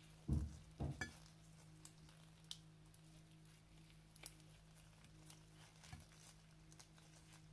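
Faint handling sounds of a plastic honey sachet being squeezed out into a glass dish: soft crinkles and sticky squishes, with two short low thumps right at the start. A steady low hum runs underneath.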